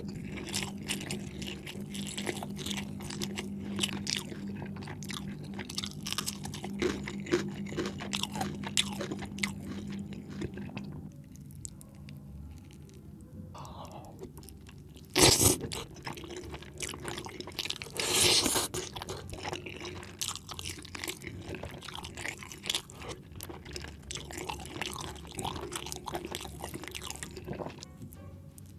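Close-miked mouth sounds of eating spinach chicken curry: steady chewing with wet smacks and crunchy bites. A sharp knock about halfway through and a brief louder burst a few seconds later stand out, and a low hum sits underneath for the first third.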